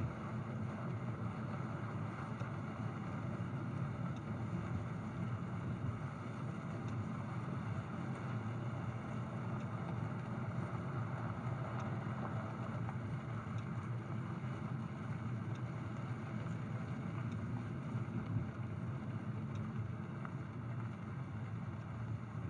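Steady rumble of a vehicle driving slowly on a gravel road, heard from inside the cabin: low engine and road noise with tyre noise over the gravel.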